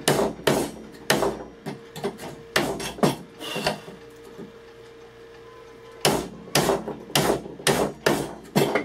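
Mortise chisel being struck into hardwood, chopping out a mortise: a run of sharp wooden knocks, two to three a second, a pause of about two seconds in the middle, then another run of knocks.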